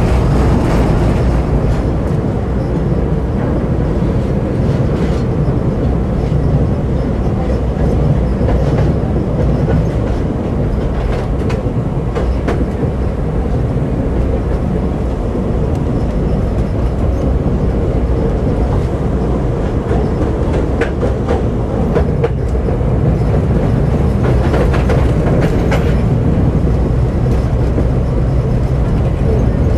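Tram running along its track, heard from on board: a steady low rumble of steel wheels on the rails, with scattered clicks and clunks from the wheels here and there.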